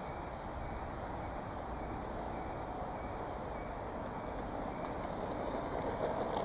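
WLtoys 124019 4WD RC buggy running on loose gravel: a steady, noisy rush of electric motor, drivetrain and tyres that grows louder near the end as the car comes close.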